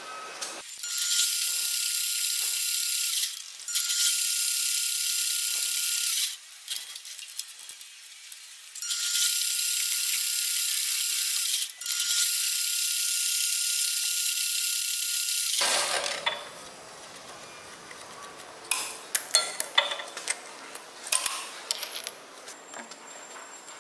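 Metal lathe cutting the end of a steel tube: four cutting passes of a few seconds each, with a steady high-pitched whine and hiss. In the last third the cutting stops and there are scattered light clicks and knocks.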